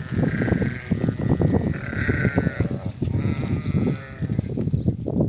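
Sheep bleating: three drawn-out calls about a second apart, over a continuous low, uneven rumble of flock noise.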